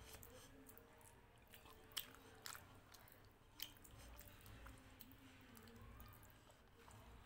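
Faint, close-miked eating sounds: chewing and wet mouth noises while fingers squish rice and dal on a plate, with three sharp clicks in the middle, and a bite as a handful goes into the mouth near the end.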